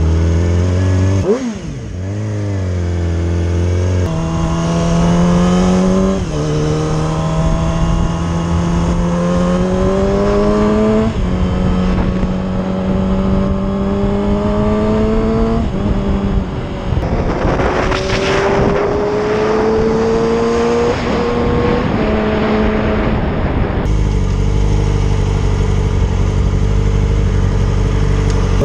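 Motorcycle engine pulling through the gears on a ride: its pitch climbs in each gear and drops back at each shift, several times over. About two thirds of the way through it settles to a steady low note, then starts climbing again at the very end, with a brief rush of noise around the middle.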